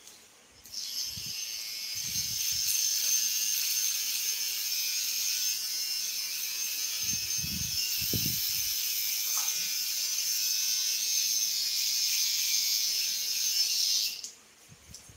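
Electric hair clippers buzzing steadily as they cut a child's short hair, starting about a second in and cutting off shortly before the end.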